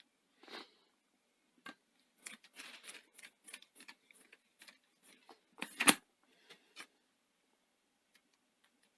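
A run of small clicks and taps from handling the laptop's plastic and metal trackpad parts by hand, about two or three a second, with a brief scrape early on and one louder, sharp click about six seconds in.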